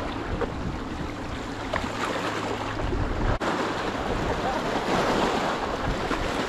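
Boat-wake waves lapping and washing against the riverbank, with wind on the microphone. Near the end, splashing as a small bream is swung out of the water on the line.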